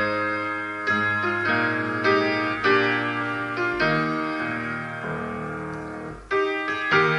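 Background piano music: struck notes and chords that ring and fade, thinning out before a fresh chord comes in about six seconds in.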